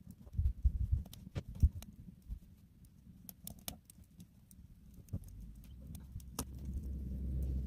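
Wood fire crackling inside a steel drum stove, with scattered sharp pops. There are heavy low thumps in the first two seconds and a low rumble building in the last few seconds.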